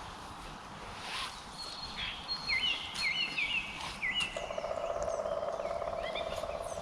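Small birds chirping and singing, with a run of short, quickly repeated hooked notes through the middle. From a little past halfway, a steady, fast-pulsing trill joins them.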